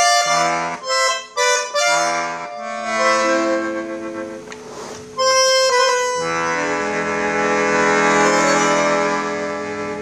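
AA Premier bandoneon playing reedy chords. First comes a quick run of short, detached chords, then longer held ones. The last chord is sustained for several seconds and fades near the end.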